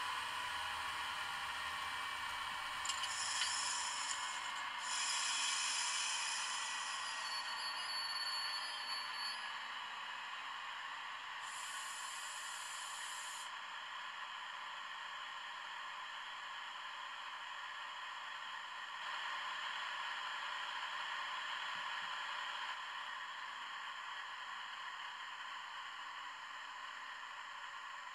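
Loksound 5 Micro DCC sound decoder in an N gauge Class 68 model playing a Class 68 diesel engine sound through its small speaker. The engine note falls in pitch over the first few seconds, then runs steadily. Several bursts of air hiss come in the first half.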